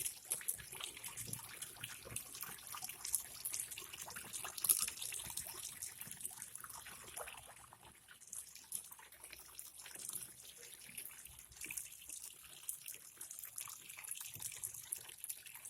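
Tap water running into the wash tub of a twin-tub washing machine as it fills, with uneven splashing and trickling.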